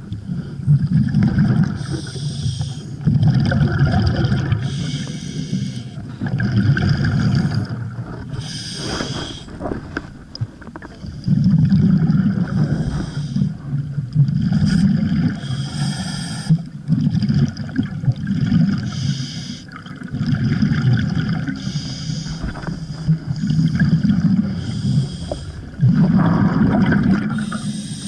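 Scuba regulator breathing underwater: a short hiss on each inhale, then a rumbling burst of exhaust bubbles on each exhale, repeating every few seconds.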